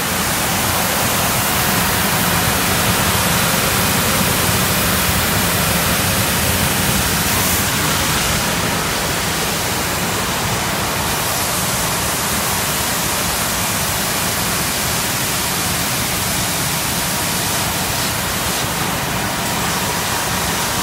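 Costa wide-belt sanding machine running: a steady, loud rushing noise of its motors, belts and air, with a faint steady hum on top.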